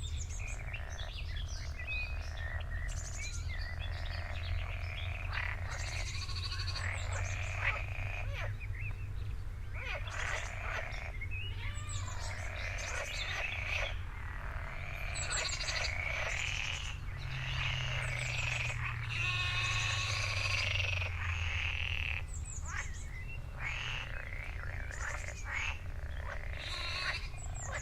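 Jungle night ambience: a dense chorus of croaking and trilling frogs with other animal calls overlapping throughout, over a steady low rumble.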